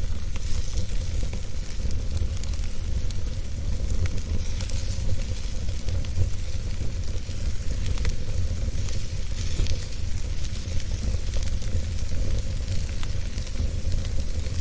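Fire burning in a fire pit: a steady hiss over a low rumble, with scattered sharp crackles and pops.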